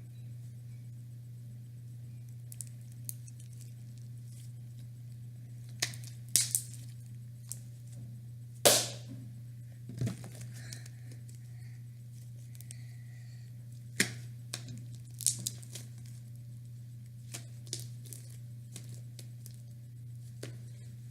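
Slime being squished and stretched by hand, giving scattered sharp clicks, pops and crackles, the loudest about nine seconds in. A steady low hum sits underneath.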